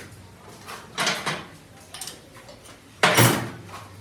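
A few separate knocks and a scraping sound, the loudest a half-second scrape about three seconds in, with quiet between.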